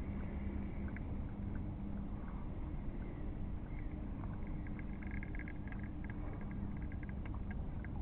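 A small boat motor running with a steady hum, with scattered runs of fast clicking over it from about halfway through.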